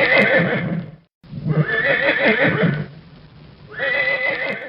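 A horse whinnying in long, quavering calls. The recording drops out for a moment about a second in, then resumes and cuts off suddenly at the end.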